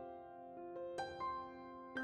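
Soft background piano music: a slow melody of single notes.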